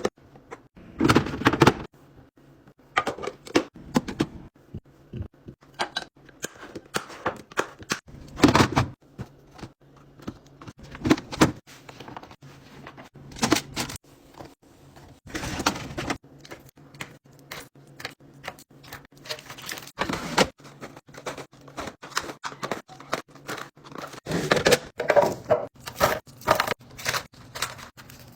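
Food packages and containers being handled and set down during a fridge restock: an irregular run of clacks, taps and thunks. A few longer bursts of rustling come in between, the loudest at about one, eight and sixteen seconds in and again near the end.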